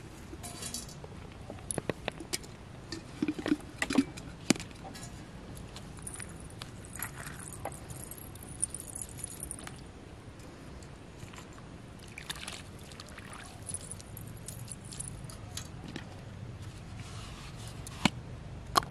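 Aluminium pots and a metal bowl clinking and knocking as they are handled and set down on the ground: a quick run of knocks in the first few seconds and two more near the end.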